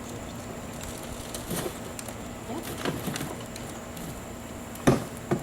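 Scattered rustles and knocks as a container of potato-bed soil is tipped and emptied, with two loud thumps in quick succession near the end.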